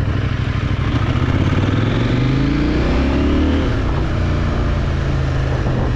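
CFMOTO 800NK's parallel-twin engine running under way, rising in pitch as it accelerates from about two seconds in, then settling back to a steady drone.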